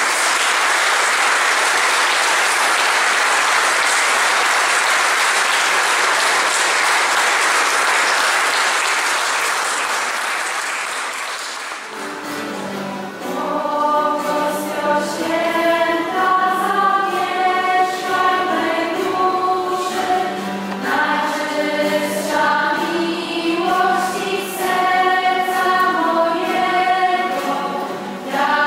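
Applause that fades out about ten to twelve seconds in, followed by a group of voices singing a hymn.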